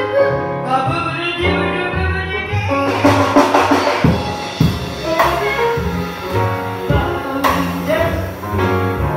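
Live jazz: a woman singing into a microphone over grand piano, upright bass and drums, with cymbal strokes several times.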